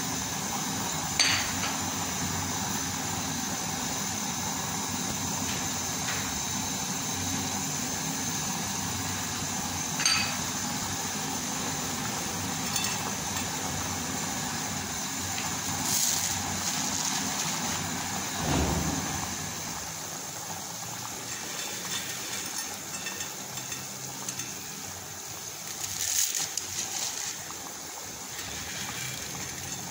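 Pot of aash soup boiling hard, a steady bubbling hiss, with a few sharp clinks of metal on the pot.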